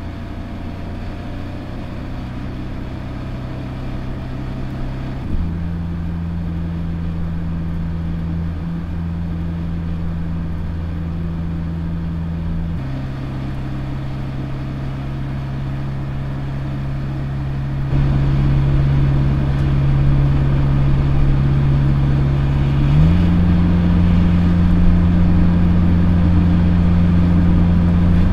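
BMW M5's twin-turbo V8 hybrid drivetrain running under steady cruise as the car drives by on the road, a low, even engine drone. Its pitch steps up and down a few times, and it grows louder about two-thirds of the way through.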